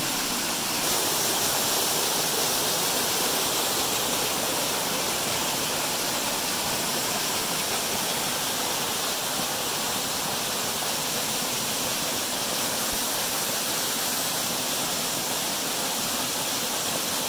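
Steady rush of a waterfall: white water pouring and cascading down a rock slide close by.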